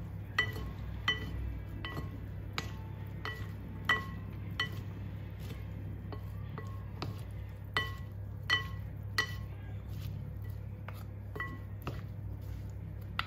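Metal fork and wooden spoon tossing diced salad in a glass bowl, the fork clinking against the glass in irregular bright, ringing clinks, busiest in the first few seconds and again around the middle.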